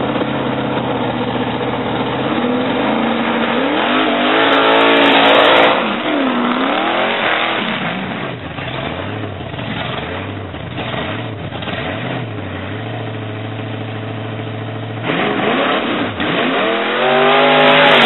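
Muscle car engines being revved hard for burnouts: repeated climbs and drops in revs, loudest about four to five seconds in, settling to a steadier lower note in the middle, then revving up hard again near the end as the next car lights up its rear tyres.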